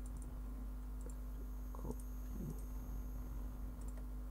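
Faint clicks of a computer mouse and keyboard over a steady low electrical hum.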